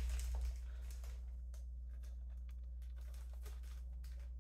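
Faint clicking of a plastic zip-top bag's zipper seal being pressed shut, over a steady low hum.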